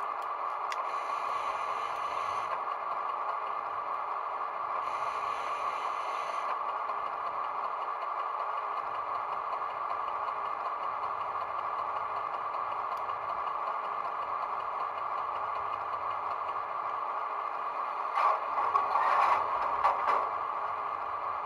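ESU LokSound 5 sound decoder in a Jouef HO model of the SNCF X4700 diesel railcar, playing a steady diesel engine idle through the model's small speaker, thin and mid-pitched. Twice early on, a higher hissing layer joins for a second or two. Near the end there are about two seconds of louder, irregular clattering.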